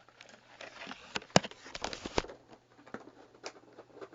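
Handling of an action figure's packaging: an irregular run of clicks, taps and rustles, with the sharpest knock about a second and a half in.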